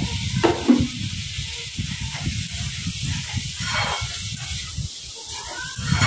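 Chopped onions frying in oil in a steel kadhai, sizzling steadily as they soften, over a low rumble. A metal spatula stirs and scrapes the pan now and then.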